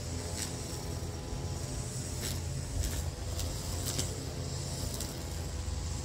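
A nearby engine running steadily with a low idling hum. A few short sharp clicks sound over it, as a kayak seat's strap buckles are worked.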